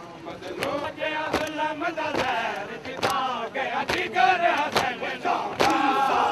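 Crowd of men chanting together in a rising and falling refrain, with sharp hand slaps at uneven intervals, growing louder toward the end.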